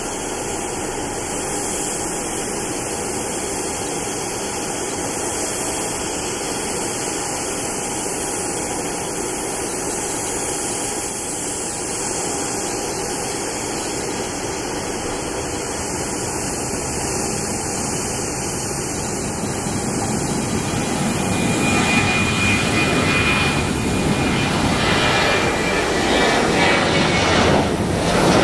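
Boeing 737-700's CFM56-7B turbofan engines at takeoff thrust: a steady jet engine noise through the takeoff roll that grows louder about three-quarters of the way in, when a high fan whine comes in as the airliner lifts off and climbs out.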